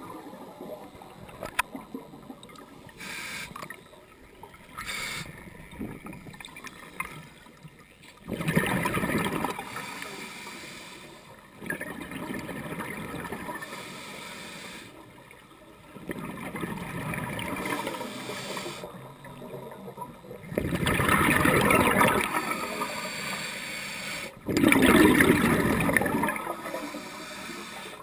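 Scuba diver breathing through a regulator underwater: loud bursts of exhaled bubbles about eight seconds in and twice near the end, with quieter hissing and bubbling between.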